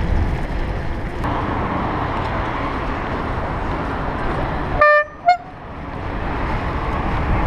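Bicycle horn honked twice a little under five seconds in: a short toot, then a briefer, slightly higher one, over steady road and wind noise from riding in traffic.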